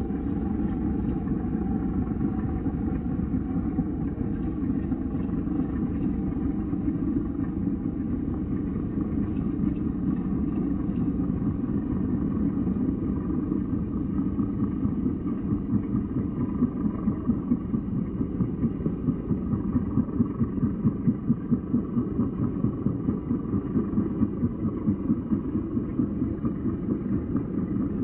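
Extra EA-300LC aerobatic plane's piston engine and propeller: a steady deep rumble that, from about halfway through, beats in slow regular pulses of about two to three a second.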